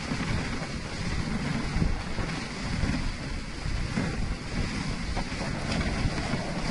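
Wind buffeting the microphone on a moving dog sled, gusting unevenly, over the steady hiss of the sled's runners sliding on snow.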